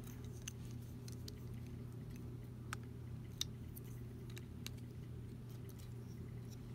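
Plastic Lego bricks clicking and tapping now and then as they are picked up and handled, a few single sharp clicks over a steady low hum.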